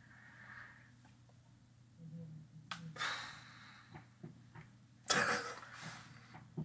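Mostly quiet room with a few short, soft breath-like noises, the clearest about five seconds in.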